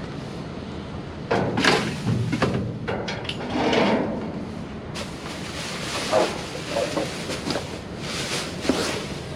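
Irregular rustling, scraping and knocking of objects being handled and moved about, in uneven bursts starting about a second in, over a steady background hiss.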